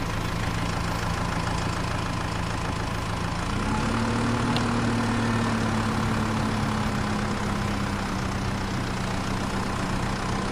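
Engine idling steadily, its pitch stepping up a little about three and a half seconds in and holding there.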